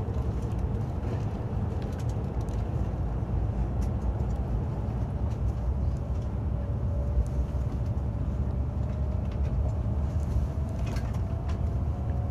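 Cabin noise of a Shinkansen bullet train pulling out of a station: a steady low rumble, with a faint whine rising in pitch from about halfway through as the train gains speed.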